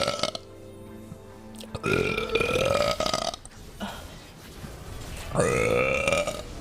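A woman burping: the end of one long belch at the start, then two more long, drawn-out belches, each a second or more long and rising slightly in pitch.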